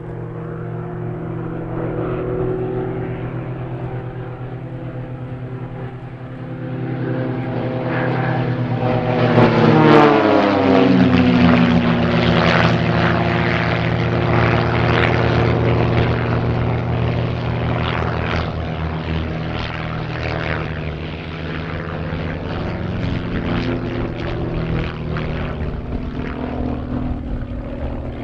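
Piston engines and propellers of aerobatic biplanes flying a formation display. About ten seconds in, one passes close by at its loudest, and its engine note drops in pitch as it goes past. Afterwards the engines run on with a rough, rasping buzz as the planes climb away.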